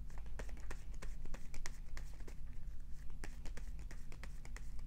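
A deck of tarot cards being shuffled by hand: a quick, irregular run of soft card slaps and clicks, several a second, over a low steady hum.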